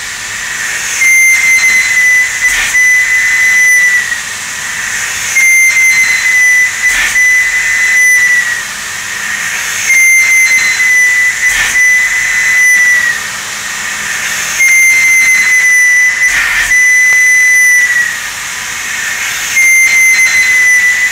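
CNC thread mill cutting a 12-pitch thread into a bore in an acrylic block. A high whine sags slightly in pitch over about three seconds and comes five times, roughly every four and a half seconds, over a steady hiss.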